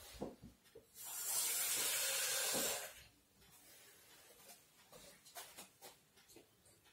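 Kitchen tap running for about two seconds with a steady hiss, filling a glass with water. This is followed by fainter sounds of the water being poured into a stainless steel mixing bowl.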